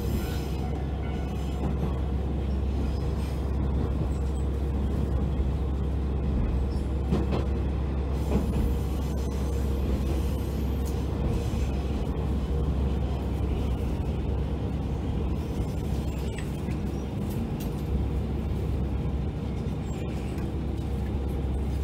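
Diesel railcar on the non-electrified Kisuki Line running along the track, heard from inside the car: a steady low engine drone under rumbling wheel and rail noise, with occasional small clicks.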